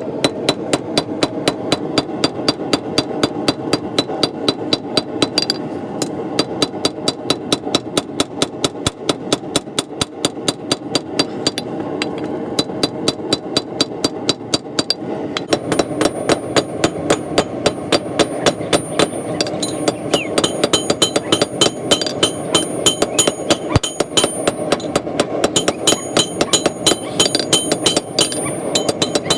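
Hand hammer forging hot coil-spring steel on an anvil: an even run of sharp blows, about three a second, over a steady rumble. In the second half the strikes ring with a high metallic tone.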